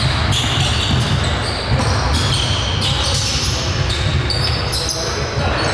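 Basketball game play: a basketball bouncing on the court, with short high squeaks scattered through, typical of sneakers on a hardwood floor.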